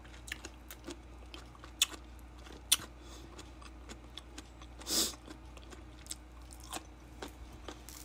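Close-up eating sounds of someone chewing pieces of ripe mango: soft wet chewing with scattered sharp lip-smack clicks, and a brief hiss about five seconds in.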